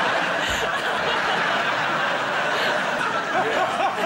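Studio audience laughing loudly and steadily. Near the end, one man's laugh rises over the crowd.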